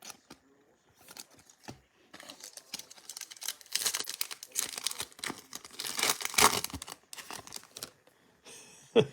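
Foil wrapper of a trading-card pack being torn open and crinkled: a few light clicks, then a dense crackling rustle lasting several seconds.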